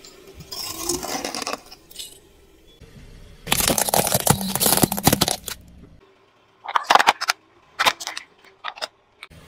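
Crunching and crackling of things being crushed under a car tyre: a short burst about half a second in, a longer, louder one around four to five seconds, then a few sharp separate snaps near the end.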